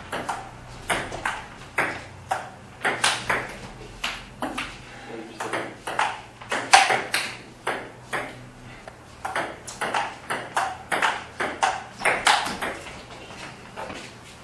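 Table tennis rally: a celluloid ball clicking back and forth on paddles and table, about two to three sharp hits a second.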